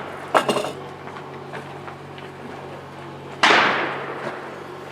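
A single gunshot about three and a half seconds in: a sharp crack with a fading echo. A short knock comes about half a second in.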